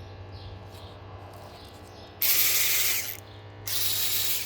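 Vessel 400 electric ratchet motor run twice, each burst about a second long with a short pause between.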